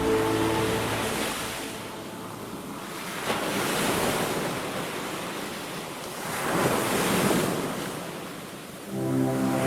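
Ocean waves surging and washing on a shore, two swells rising and falling. Soft held music notes fade out in the first second and come back near the end.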